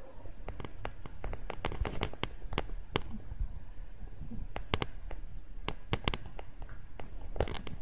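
A cat's claws picking and snagging at a fabric blanket: irregular sharp clicks and ticks, bunched in quick runs with short gaps between.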